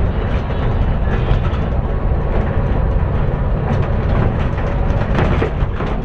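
Road noise heard inside a moving vehicle: a steady low rumble with frequent rattles and knocks over it.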